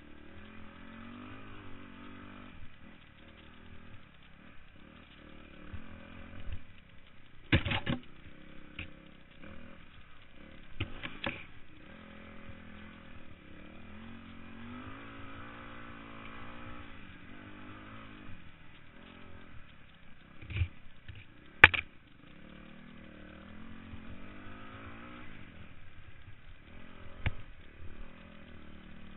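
Dirt bike engine running at low to moderate revs, its pitch rising and falling with the throttle, with a few sharp knocks over the rough trail, the loudest about three quarters of the way through.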